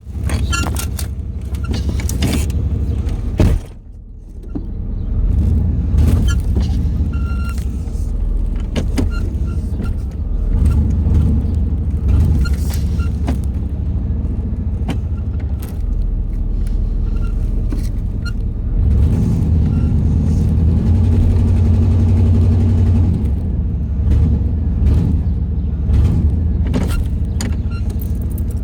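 A car engine struggling through a hard start after stalling: a steady low rumble with many short clicks, which briefly drops away about four seconds in.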